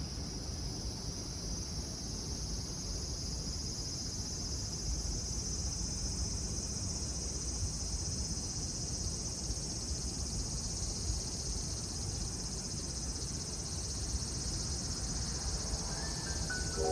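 Cicada chorus: a steady, dense, high-pitched shrilling over a low background rumble. Marimba-like music notes begin just before the end.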